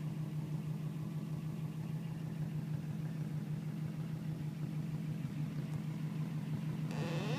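Car engine idling steadily with a low hum. A brief rustle comes near the end.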